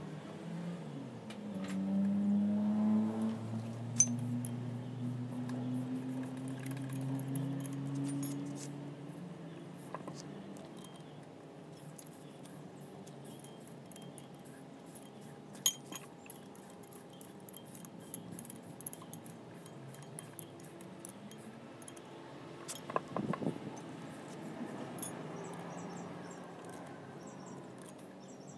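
Scattered sharp metallic clinks and taps from hand work on a marine gearbox's coupling plate, with a cluster of them a little before the end. A low drone rising slowly in pitch is the loudest sound through the first several seconds, then fades.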